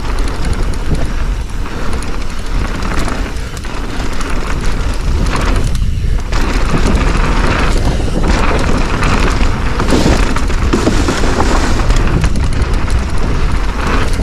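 Mountain bike running fast down a dirt flow trail without pedalling: a loud, steady rush of wind over the microphone with a deep rumble, plus tyre and bike noise. It gets a little louder about four seconds in.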